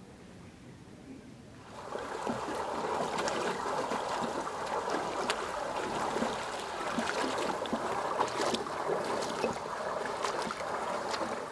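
Quiet at first; about two seconds in, water churning and gurgling in a small metal-walled basin at the lake edge starts. It goes on steadily, with many small splashes.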